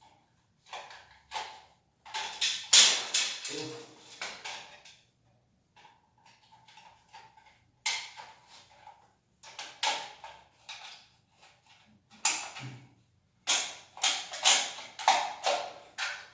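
Toilet cistern flush-valve parts being handled and fitted: irregular clacks and scrapes, busiest near the start and again near the end.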